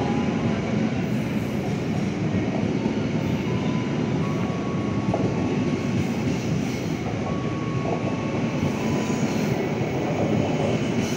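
Passenger train's stainless-steel coaches rolling past alongside the platform: a steady rumble of wheels on the rails, with faint high wheel squeals now and then and a few clicks from the rail joints.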